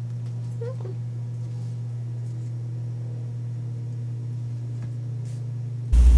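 Steady low hum, with a few faint clicks as small plastic and wired parts of a disassembled thermometer are turned over in the fingers.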